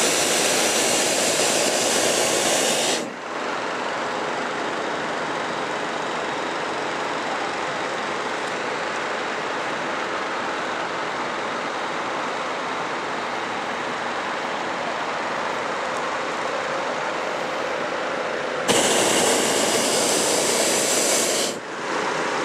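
Hot-air balloon's propane burner firing in two blasts: the first cuts off suddenly about three seconds in, and a second of about three seconds starts near the end. A steady quieter hiss fills the gap between them.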